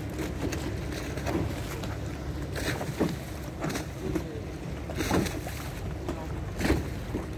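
Choppy water lapping and splashing against a wooden gondola under way, with wind rumbling on the microphone. A few sharper splashes come about three, five and nearly seven seconds in.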